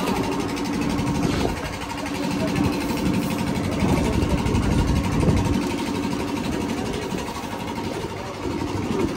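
An engine idling steadily, its hum holding one pitch, under an uneven low rumble that swells and fades.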